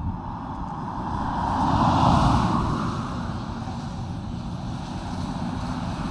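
Motor vehicle engine and road noise, swelling to a peak about two seconds in, then easing back to a steady drone.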